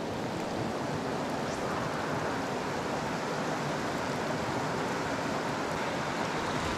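Rushing water of a fast river current running over a riffle, a steady even rush.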